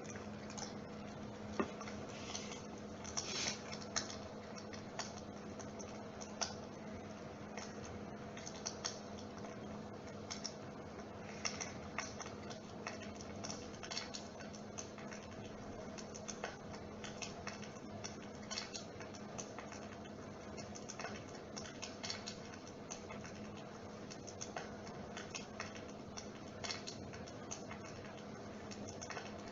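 Dimplex water-mist electric fire running: a steady low hum from its motor, with irregular crackling clicks like a wood fire.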